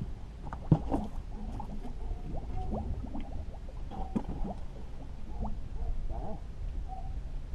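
Water lapping and gurgling against a small fishing boat's hull over a steady low rumble, with a sharp knock just under a second in and scattered light clicks and short squeaks.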